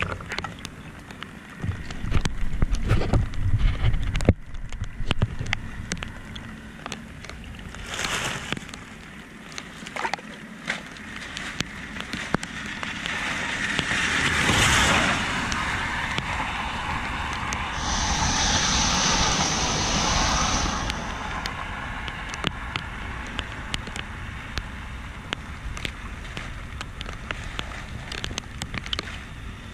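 Flood water rushing and splashing on a flooded street, with rain falling and scattered knocks and thumps. Two louder rushes of water come about halfway through.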